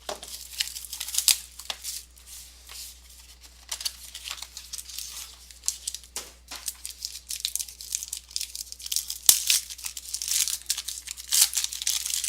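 Plastic wrapping on a box of trading cards being torn open and crinkled by hand, in irregular rustling tears, with one sharp click about nine seconds in.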